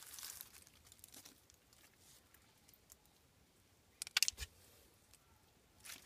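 Bare hands digging and scraping through wet soil and leaf litter: a brief rustle at the start, then a short burst of crackles with a dull thump about four seconds in.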